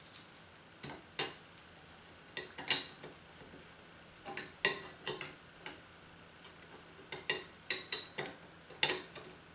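Irregular light metallic clicks and taps, in small clusters, as a linear rail is pushed and worked into the slot of a thin metal plate to test its fit.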